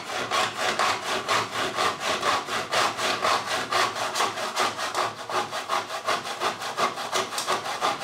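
Tenon saw cutting through UPVC quadrant beading in a plastic mitre block, with rapid, even back-and-forth strokes as it saws a 45-degree mitre.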